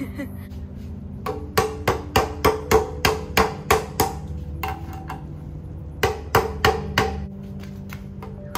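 Hammer strikes on a metal paint tin as a stuck lid is worked open: a quick run of about ten sharp knocks, then a pause, then about four more.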